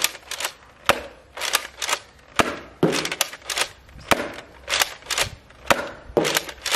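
X-Shot Orbit toy ball blaster firing in rapid succession: a string of sharp snapping shots, about two a second at an uneven pace.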